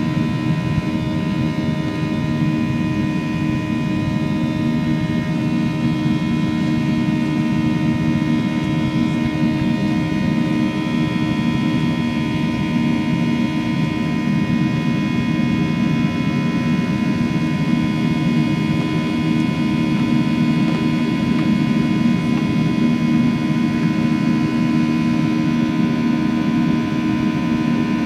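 Boeing 737-700's CFM56-7B turbofan engines running steadily, heard inside the passenger cabin as a loud, even rumble with many steady whining tones layered over it.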